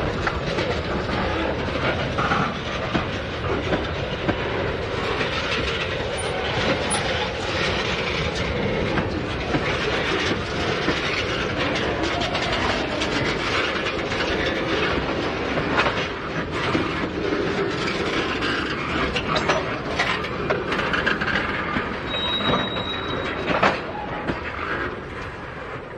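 Freight train cars rolling along the track, their wheels clacking steadily over rail joints, with a brief high squeal from the wheels about twenty-two seconds in.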